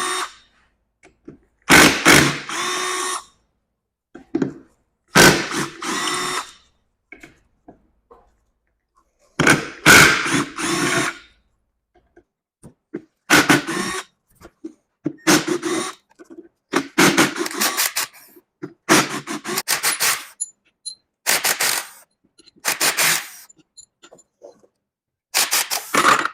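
Handheld power driver spinning in about ten short bursts of a second or so each, with pauses between, running bolts out of a Polaris 850 two-stroke snowmobile engine being torn down.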